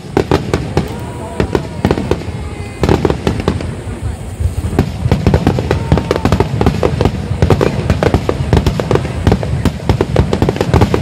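Fireworks display: aerial shells bursting in booms and crackle, turning into a dense, continuous barrage from about three seconds in.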